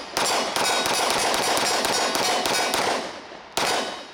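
Mossberg MC2c 9mm pistol firing a rapid string of shots, with long echoes running on between them. After a short pause, one more shot comes about three and a half seconds in.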